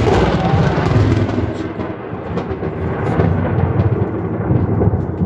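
Loud thunder from a close lightning strike, a deep rolling rumble that swells again about three seconds in and near the end.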